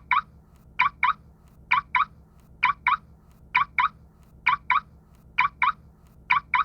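Car alarm unlock chirps as a sound effect: a quick double chirp repeated evenly, about once a second, eight times.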